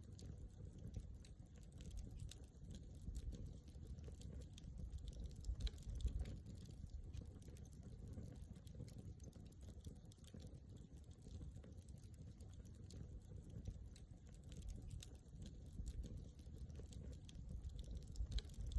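Wood campfire crackling, with frequent small irregular pops and snaps over a low rumble; one louder pop comes about six seconds in.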